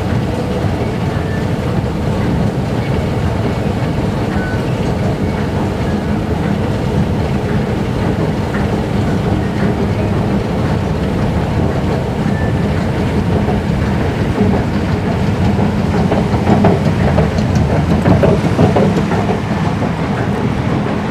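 Escalator machinery running with a steady low rumble and a light rattle from the moving steps.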